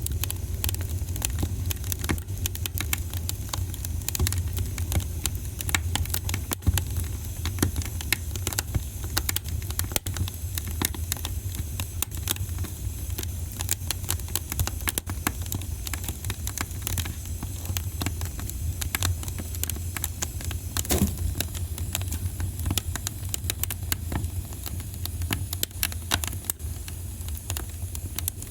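Wood fire crackling, with dense irregular pops and snaps over a steady low rumble, and a few sharper pops standing out.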